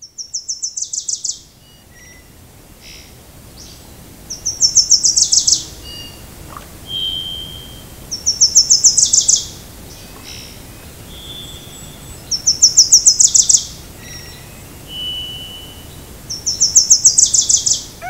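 A songbird repeating the same short, loud phrase five times, about every four seconds: a rapid run of high notes that drops in pitch over about a second. Short single whistled notes sound between the phrases.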